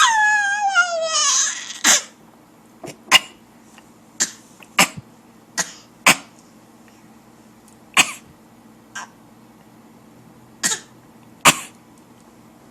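A baby's high squeal gliding downward, then a string of short, sharp coughs traded back and forth between the baby and an adult, about ten in all, spaced unevenly with pauses of up to two seconds.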